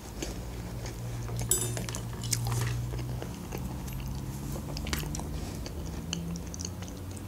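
Close-miked chewing and mouth sounds, with scattered small clicks over a low hum. Near the end, a metal fork taps and scrapes in a plate of pasta.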